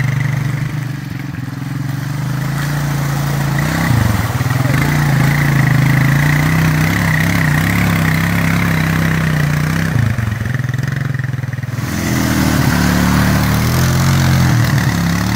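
Quad (ATV) engine running at a steady low pitch as it works through a deep mud puddle, its revs dipping briefly twice.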